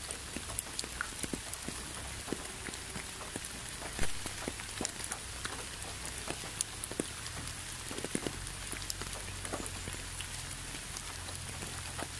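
Steady rain falling, with scattered irregular drops tapping close by; one louder drop about four seconds in.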